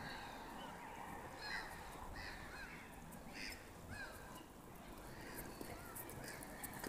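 Birds calling outdoors: a scatter of short, curved calls, most of them in the middle seconds, over a steady low background hum.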